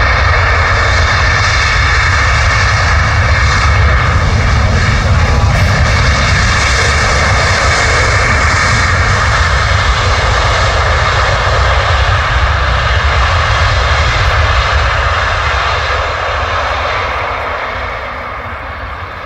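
Boeing 737's twin jet engines at high power during the landing roll on a wet runway, a steady loud roar that fades over the last few seconds.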